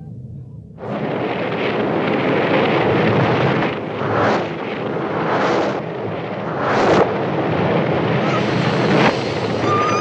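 Film soundtrack of a gasoline fire blaze: a loud rush of fire noise mixed with indistinct shouting starts suddenly about a second in and swells several times, the last swell cutting off sharply. High screeching cries begin near the end.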